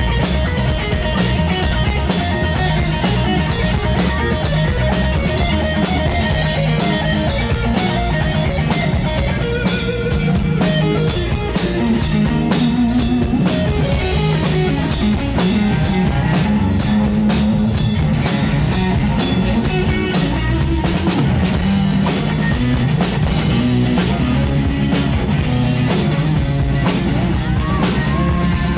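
Live rock band playing an instrumental passage: a Stratocaster-style electric guitar over a steady drum kit.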